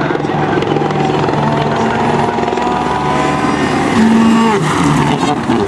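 Citroën DS3 WRC rally car's turbocharged 1.6-litre four-cylinder engine running hard. Its pitch holds steady, steps up about four seconds in, then falls away near the end.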